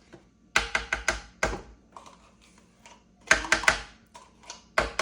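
A utensil knocking and tapping against a container as Greek yogurt is spooned in, in three bursts of quick sharp knocks: about half a second in, around three and a half seconds, and near the end.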